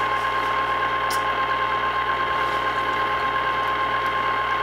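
Electric cheese-sauce fountain (a chocolate-fountain machine) running: its motor and auger give a steady mechanical hum with a constant high tone over it, loud enough to compete with a voice.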